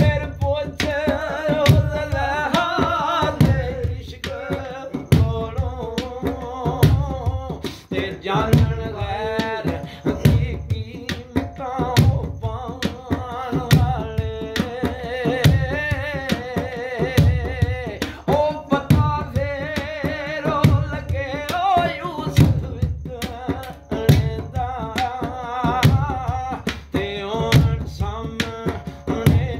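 A man singing while he plays a rhythm with his hands on a metal pot used as a drum. The strokes are sharp and quick and run under the voice.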